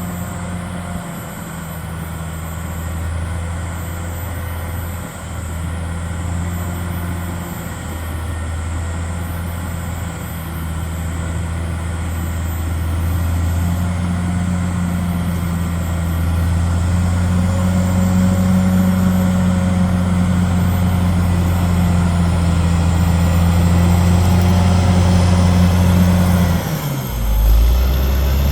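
Caterpillar D6R XL bulldozer's diesel engine running steadily under load, growing louder from about halfway through. Near the end its pitch dips sharply for about a second and then picks back up.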